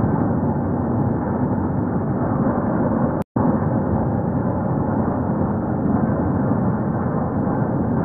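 A steady, deep rumbling noise from slowed-down outdoor audio, with a brief silent break about three seconds in.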